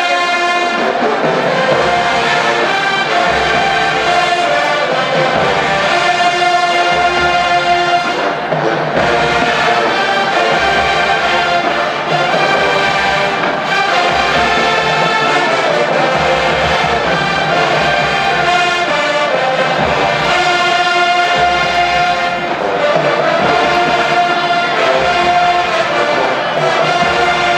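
A college marching band's brass section playing loud sustained chords and melody, with drum hits pulsing underneath.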